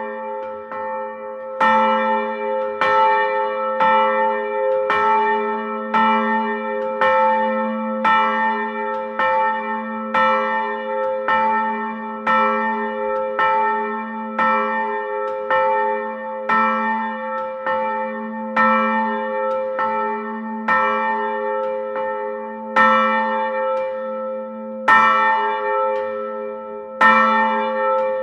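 Church bell heard from indoors, tolling about once a second, each stroke ringing on into the next so its low hum never dies away. Near the end the strokes slow to about one every two seconds.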